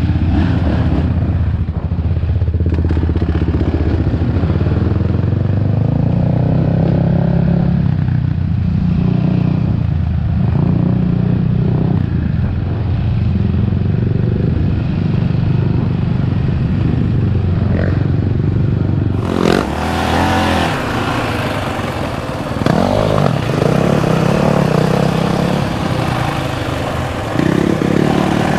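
Onboard sound of off-road riding on a dirt trail: a single-cylinder engine running and revving up and down, with the clatter of the machine over rough ground. About 19 seconds in, the sound cuts abruptly to a brighter, windier onboard recording, the engine still revving.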